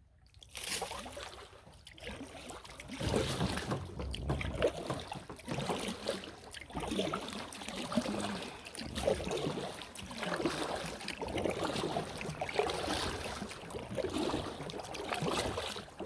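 Paddle strokes in river water, a rhythmic splashing swell about once a second that starts about half a second in.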